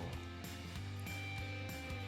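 Background music with steady sustained notes.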